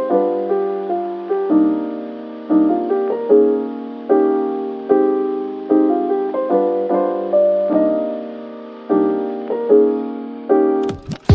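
Background music: soft electric-piano chords and melody notes, each chord fading before the next.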